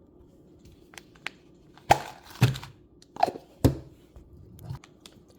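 A handful of sharp plastic clicks and knocks, about six spread over a few seconds, some with a short ring: a Mini Brands toy capsule being handled and pulled open.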